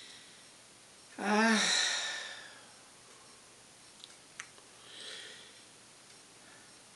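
A woman's deep sigh, voiced and breathy, about a second in. A few seconds later come a couple of faint clicks and a softer breath.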